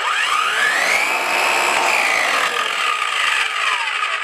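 Circular saw switched on and run free with no load: the motor and blade whine rises to full speed within about a second and holds there. The trigger is then released and the whine falls away as the blade winds down.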